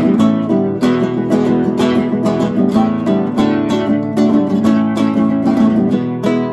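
Kremona F65 nylon-string classical guitar strummed in a steady rhythm of about three strokes a second, its chords ringing on continuously.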